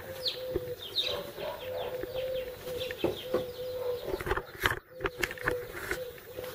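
Birds chirping and calling, many short falling chirps over a steady low note that breaks off now and then, with a few sharp clicks.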